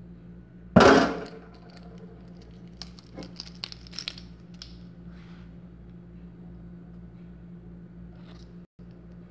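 Kitchen utensils being handled on a hard counter: one loud sharp clatter about a second in that fades quickly, then a few light clicks and knocks, over a steady low hum.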